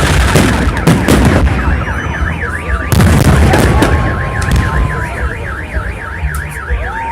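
Festive fireworks salute going off in loud booming bursts, about a second in and again about three seconds in. A car alarm warbles rapidly up and down through the rest.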